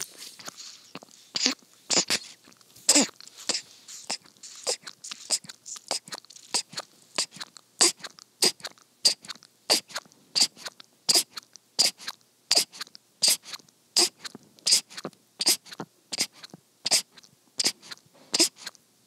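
Newborn baby sucking on a bottle nipple, close up: wet sucking and smacking clicks, a few uneven ones at first, then settling into a steady rhythm of about two to three a second.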